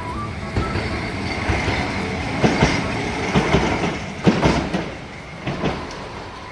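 Tokyu Setagaya Line train passing over the level crossing, with a steady rumble and wheels clacking over the rail joints in pairs, three pairs in the middle. A faint high-pitched whine runs under the first clacks.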